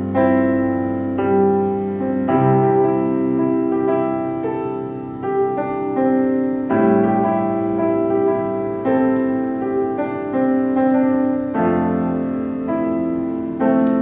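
Solo piano played at an unhurried pace: a new note or chord struck about once a second and allowed to ring, with deep bass notes held beneath some of the chords.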